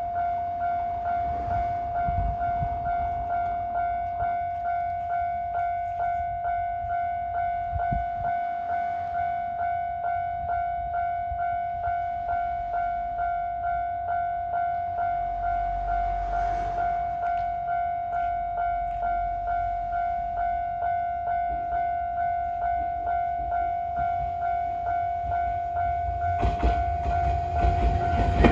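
Electronic warning bell of a Japanese railway level crossing ringing steadily at about two strokes a second. Near the end a train begins passing over the crossing, its rumble rising under the bell.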